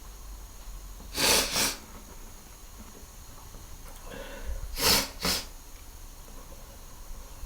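A man sneezing twice, about three and a half seconds apart. Each sneeze is a sharp burst followed at once by a smaller second burst, and a short inhale leads into the second sneeze.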